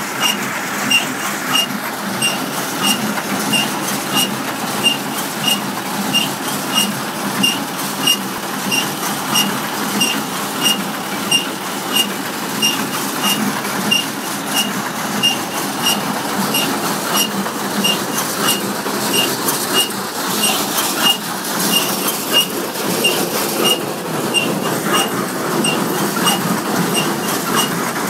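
International 430 small square hay baler running, its plunger clacking in a steady, even rhythm about one and a half times a second over a continuous mechanical drone.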